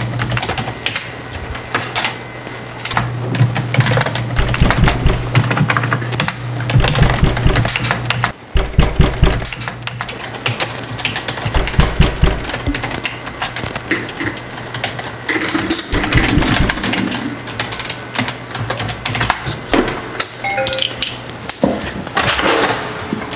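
Fast typing on a computer keyboard: a dense, uneven run of key clicks, over a low steady hum.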